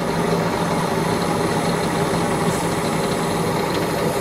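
A heavy engine idling steadily, with an even, unchanging hum.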